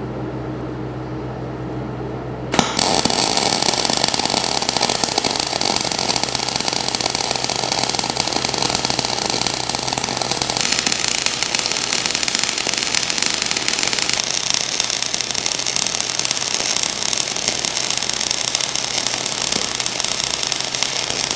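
A steady low hum, then about two and a half seconds in a welding arc strikes and a loud, continuous crackle follows as weld metal is laid down to build up the worn steel of a rerailing frog.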